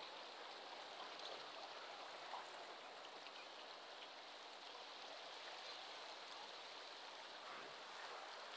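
Faint, steady rush of inlet water running fast past a rock jetty and splashing against the rocks.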